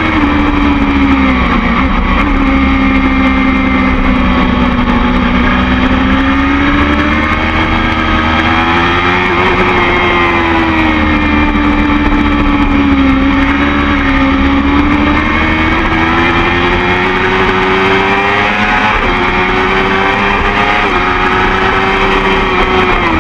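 BMW S1000RR's inline-four engine running hard at high revs on track, heard from a camera mounted on the bike. Its note rises and falls gently with the riding, over a steady rush of wind on the microphone.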